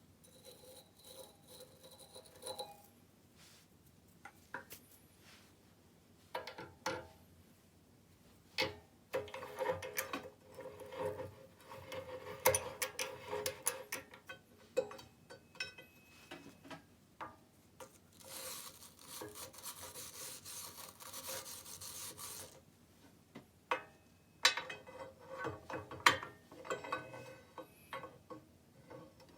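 Metalworking on an aluminium bar: irregular scraping and rubbing with scattered clicks and knocks, and a steady hiss for about four seconds past the middle.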